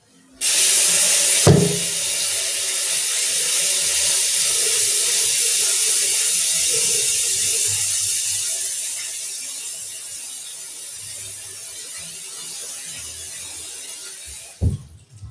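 Aerosol spray can hissing in one long continuous spray that starts and stops abruptly, growing quieter about nine seconds in. A single knock sounds about a second after the spray begins.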